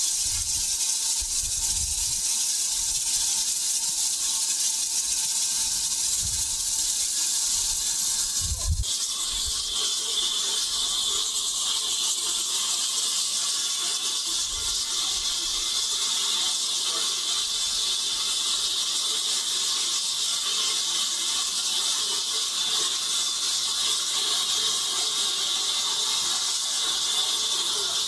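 Water gushing from a water column's hose into a steam tank locomotive's tank; about nine seconds in this gives way to a steady high hiss of steam escaping from the locomotive.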